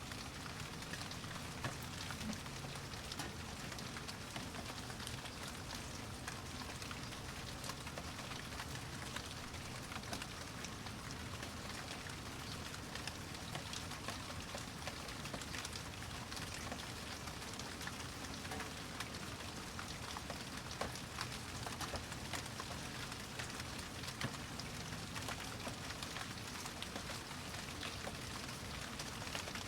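Steady rain falling, with many fine individual drops ticking and pattering on a surface.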